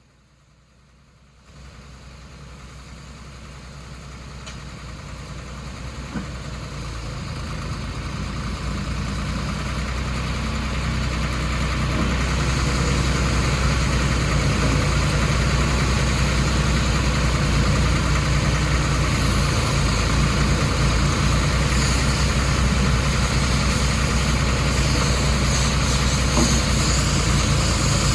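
Ditch Witch 4010 trencher's engine coming in about a second and a half in, then running steadily at idle, growing louder over the next ten seconds or so before holding level.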